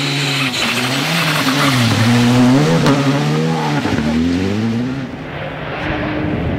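Škoda Fabia rally car's turbocharged four-cylinder engine passing at speed on a gravel stage, its revs rising and falling several times through gear changes over a rush of tyre and gravel noise. After about five seconds it gives way to a quieter, more distant rally car engine.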